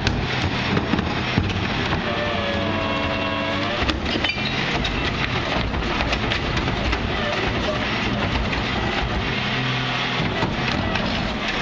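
1997 Crane Carrier LET rear-load garbage truck with a Wayne Royal GT body, its diesel engine running while the claw cart tipper dumps a wheeled plastic bin. A pitched hydraulic whine swells and fades about two seconds in, with sharp clanks and bangs as the bin is hooked, hits the top and is set back down.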